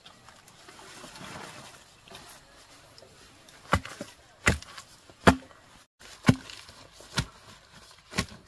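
A digging tool chopping into dry soil: six sharp strikes about a second apart in the second half, after a soft rustling in the first couple of seconds.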